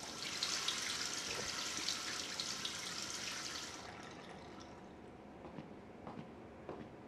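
Washbasin tap running in a steady stream for about four seconds, as at a hand wash, then shut off.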